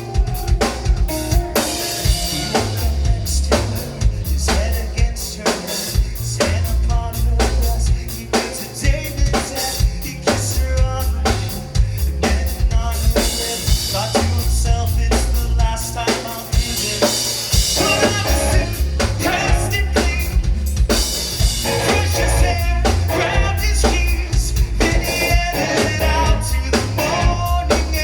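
A rock band playing live, the drum kit loudest, with a steady rhythm of kick and snare hits over a sustained low bass line.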